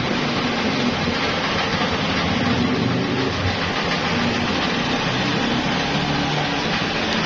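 Rubber molding machine running: a steady mechanical hum under a broad hiss, with no distinct knocks or clicks.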